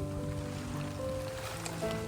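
Background music of held, sustained notes, moving to new notes about every second.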